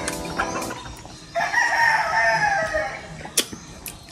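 Rooster crowing: one crow trails off at the start, and a second long crow begins about a second and a half in. A sharp click comes near the end.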